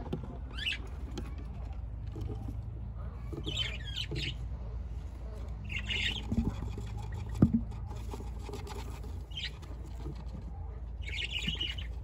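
Budgerigars chirping in short, scattered bursts of high calls. A single sharp knock comes about seven seconds in.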